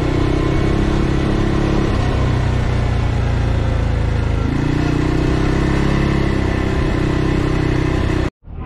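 ATV engine running while under way, its note easing off about two seconds in and picking up again a couple of seconds later; the sound cuts off suddenly near the end.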